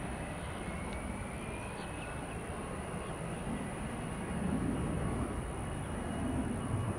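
Jet aircraft engines rumbling steadily, the rumble swelling a little in the second half.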